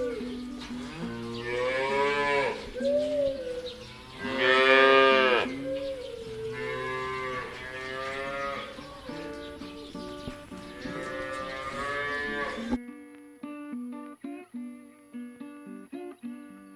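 Cattle mooing: several long calls, the loudest about four to five seconds in, over acoustic guitar music. The mooing cuts off abruptly about thirteen seconds in, leaving only the plucked guitar music.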